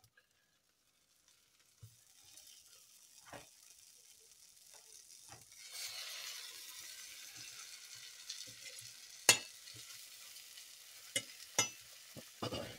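Garlic-buttered bread slices sizzling in a frying pan. The sizzle starts faint and swells about halfway through. Several sharp clicks of a metal fork against the pan cut through it, the loudest a little past the middle.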